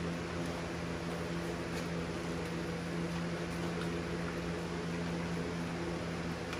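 A steady mechanical hum with an even hiss over it, unchanging throughout.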